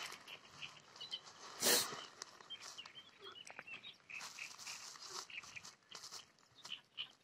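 Small birds chirping faintly, short high chirps scattered throughout, with one brief rush of noise a little under two seconds in.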